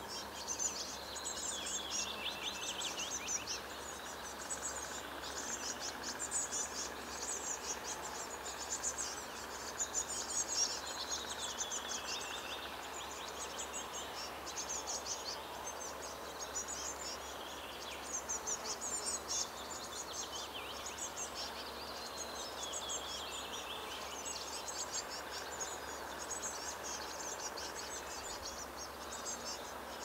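Songbird nestlings calling from the nest: bursts of rapid, high-pitched chirps repeating throughout, with now and then a lower run of notes that falls in pitch.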